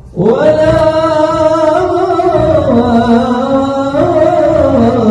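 Men singing a long, drawn-out melismatic line of a Hijazi madih (praise song for the Prophet), coming in suddenly and loud. Each note is held, and the melody steps down about halfway through, then rises again near the end.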